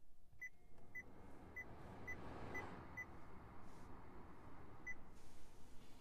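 Seven short, identical confirmation beeps from a 2019 Honda Clarity's climate touchscreen as the fan-speed settings are tapped, six in quick succession and one more near the end. Behind them is a steady rush of air from the climate blower fan, which comes in after the first beep.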